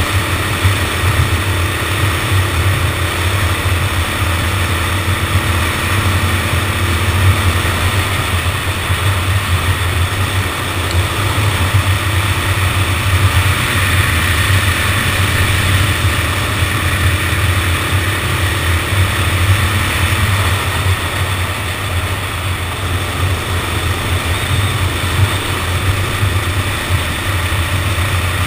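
Go-kart engine running steadily under way, heard close up from a camera mounted on the kart.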